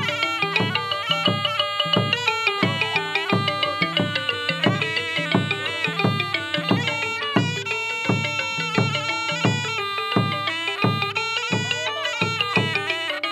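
Cambodian pinpeat ensemble accompanying masked dance: a nasal, reedy sralai oboe melody over a steady drum beat of about three strokes a second.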